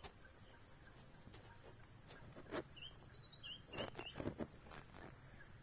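Quiet outdoor ambience with a small bird giving a string of short high chirps about three seconds in, alongside a few soft knocks.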